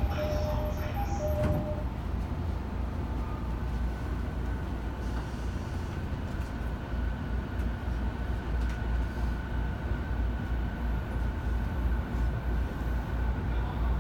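E217-series commuter train: the door-closing chime beeps a few times in the first two seconds, then the car rumbles and a steady whine from the traction motors comes in as the train pulls away.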